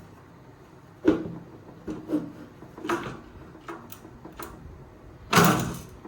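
Parts of a Viscount Legend 70's Compact keyboard being set back into place: a string of short plastic-and-wood knocks and clunks, then a louder, longer clunk near the end as the part seats.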